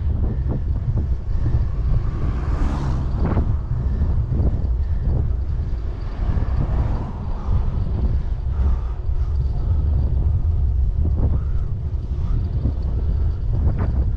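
Wind buffeting the microphone while riding a bicycle: a steady low rumble, with a few short knocks along the way.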